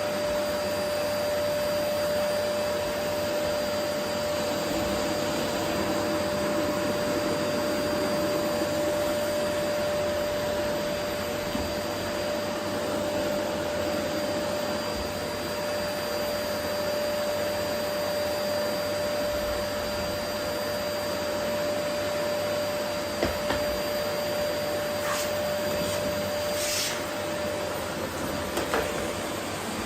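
Vacuum cleaner running steadily over a wooden floor, a constant rushing noise with a steady whine in it. Near the end the whine drops out and a few short clicks are heard.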